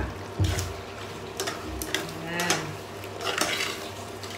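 Metal spoon stirring a thick pork stew in a metal pot, scraping and knocking against the pot's sides and bottom in about half a dozen strokes, over a steady low hum.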